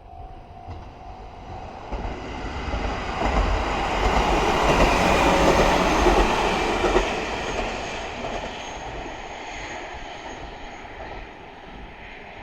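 A JR Hokkaido KiHa 40 diesel railcar passing close by. Its engine and wheels on the rails grow louder, are loudest about five to seven seconds in, then fade as it runs away.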